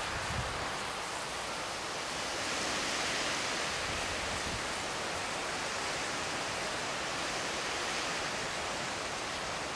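Steady rushing hiss of wind through bamboo and shrubs, swelling a little about three seconds in.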